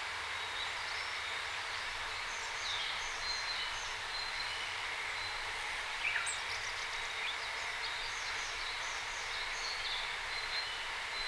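Wild birds calling: many short, high chirps and twitters over a steady hiss of outdoor background noise, with one louder call about six seconds in.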